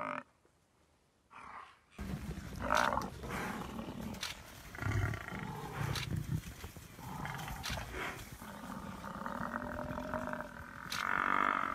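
Lions growling and roaring as they attack a Cape buffalo, starting after about two seconds of near silence, with a few sharp clicks scattered through.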